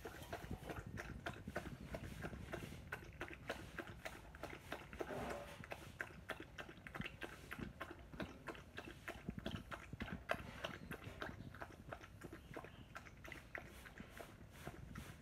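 A dachshund lapping milk from a bowl with its tongue: a quick, steady run of small clicking laps.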